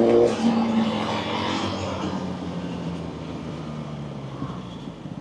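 Motorcycle engine being revved up, then the throttle closes about a third of a second in and the engine note drops away, leaving a fading rushing noise as the bike slows.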